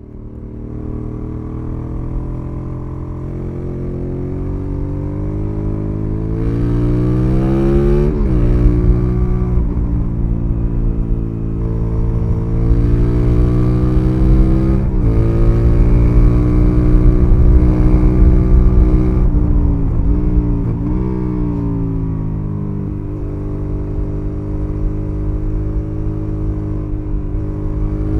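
Aprilia Dorsoduro's V-twin engine through Arrow exhausts, heard onboard while riding: the engine note climbs steadily under acceleration and drops sharply at two upshifts, about eight and fifteen seconds in. Around twenty seconds in it falls and picks up twice, then settles to a lower, steadier note.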